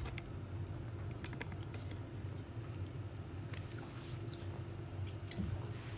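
Steady low room hum with a few faint, scattered clicks and taps.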